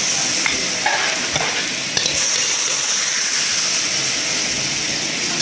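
Steady sizzling hiss of stir-fried greens in a hot wok as they are scraped out onto a plate, with a few light clicks and knocks in the first couple of seconds.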